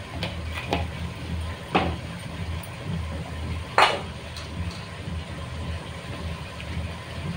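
A steel spatula clinks against an aluminium pressure cooker a few times. The two loudest knocks come about two seconds in and about four seconds in, over a steady low hum.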